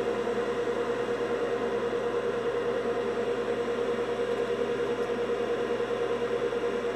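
Steady whir of an electric fan or blower on a soldering bench, an even rushing noise with a steady hum note under it and no change in speed.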